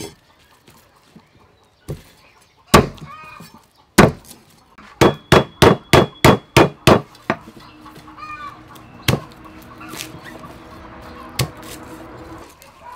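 Cleaver chopping through lemongrass stalks onto a thick wooden chopping block: a few single heavy chops, then a quick run of about eight chops around five to seven seconds in, then a few more spaced chops. Chickens cluck in the background.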